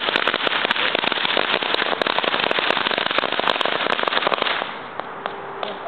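Ground firework crackling: a dense, rapid run of sharp pops that thins out about four and a half seconds in, leaving a few scattered pops.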